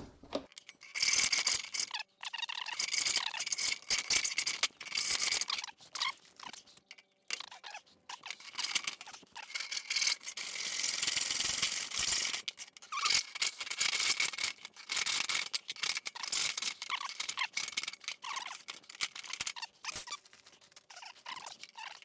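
Hand hacksaw sawing through thin perforated steel cable tray on a workbench: a rasping back-and-forth stroke, stroke after stroke with short pauses, one longer unbroken run about ten seconds in.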